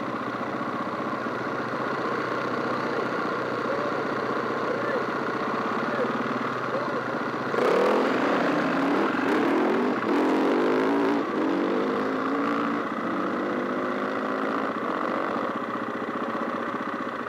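Enduro dirt bike engines idling. About eight seconds in, one bike revs hard and pulls away on loose gravel, its rear tyre spraying stones, and the engine note climbs in several rising sweeps as it shifts up, dropping back about three seconds later to the steady idle.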